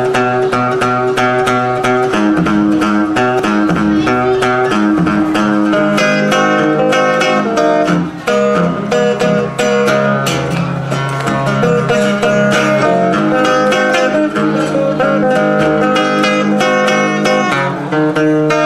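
Steel-string acoustic guitar playing a solo country-blues intro in Piedmont picking style: a steady stream of quickly picked notes over a bass line, with no singing.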